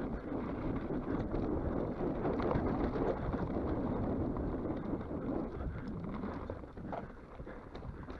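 Mountain bike rolling along a dirt trail: tyre noise with small rattles and clicks from the bike, and wind on the microphone. It is loudest in the middle and eases off toward the end.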